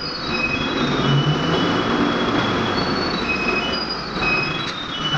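A pickup truck driving across a concrete garage floor: a steady rumble of road noise with a scatter of short, high-pitched squeals at several different pitches.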